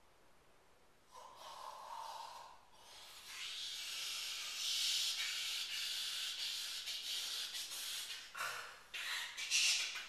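A man hissing and blowing through his mouth: a short breathy exhale about a second in, then a long, steady, high hiss from about three seconds in, breaking into shorter breathy bursts near the end.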